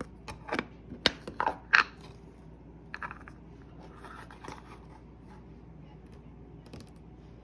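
Small objects being handled close to the microphone during an unboxing of fidget toys: a quick run of crinkly scrapes and clicks in the first two seconds, then a few more around three and four and a half seconds.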